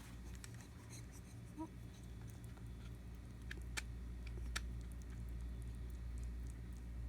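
A rabbit's teeth squeaking and clicking faintly as it chews syringe-fed food, with a short squeak and a few sharp clicks: the sign of a dental problem that needed the teeth trimmed.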